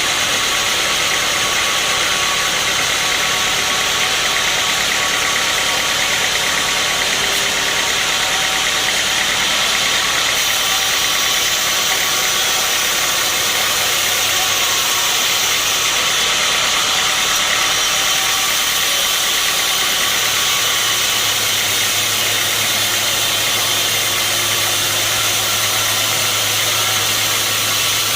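Sawmill machinery running steadily, a loud, constant mechanical noise with a lot of high hiss; a low hum joins in about two-thirds of the way through.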